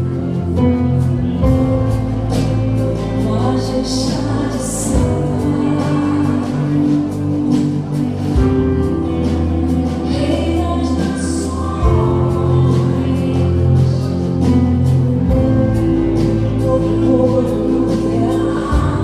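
Live gospel worship music: a band of drums, electric guitars and keyboard playing with voices singing, with sustained bass notes and steady drum and cymbal strokes.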